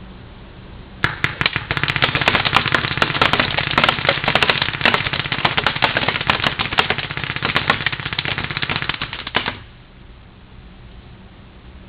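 Planet Eclipse Etek 3 electropneumatic paintball marker firing a rapid, continuous string of shots in ramping mode at about 15 balls a second, heard from about 40 yards away. It starts about a second in, empties a full pod in about eight and a half seconds, and cuts off suddenly.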